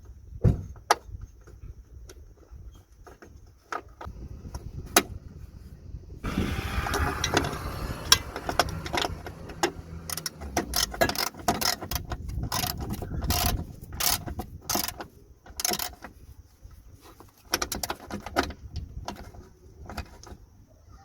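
Hand tools and metal parts clicking, knocking and scraping while a handbrake cable clamp is fastened under a car. The clicks are scattered at first, turn into a busier run of clicking and scraping through the middle, then thin out again.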